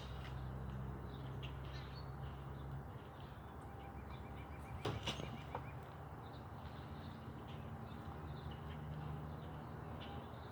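Quiet outdoor garden ambience: a low steady hum, faint bird chirps, and one sharp knock about five seconds in.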